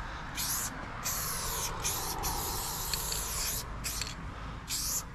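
Aerosol spray-paint can hissing in about five short bursts as black paint is sprayed onto a concrete wall. The longest burst comes around two seconds in.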